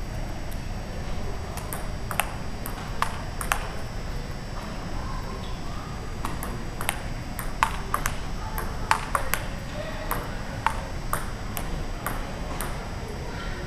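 Table tennis ball clicking off the paddles and the table in rallies. There are a few sharp ticks, then a pause of about two seconds, then a quicker exchange of roughly two hits a second.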